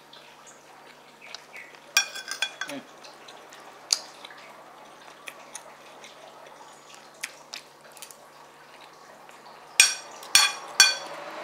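Metal spoon clinking and scraping against a ceramic plate while scooping fried rice. A few sharp ringing clinks come about two seconds in and three louder ones near the end, with small clicks between.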